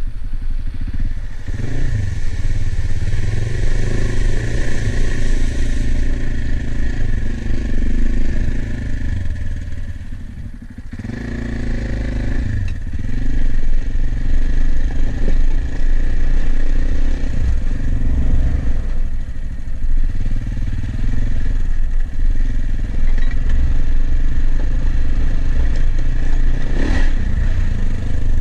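AJP PR7 dual-sport motorcycle's single-cylinder engine running as it rides over rough ground, easing off briefly about eleven seconds in. The tyres clatter over loose stones and wooden bridge planks.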